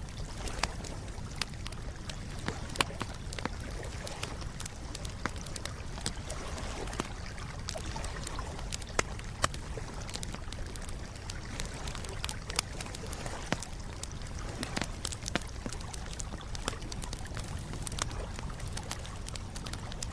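Campfire crackling: irregular sharp pops and snaps over a low steady rumble, a few pops standing out louder than the rest.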